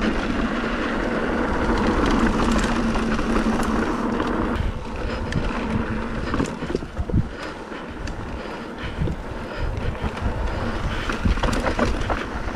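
Wind rushing over the microphone as a mountain bike rolls along a trail, with scattered knocks and rattles from the bike over rough ground in the second half.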